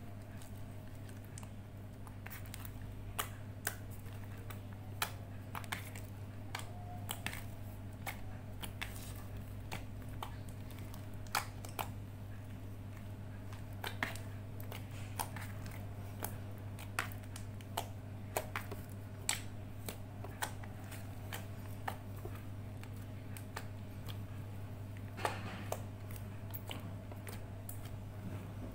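Slime being kneaded and mixed by hand, giving irregular sticky clicks and pops, with a steady low hum underneath.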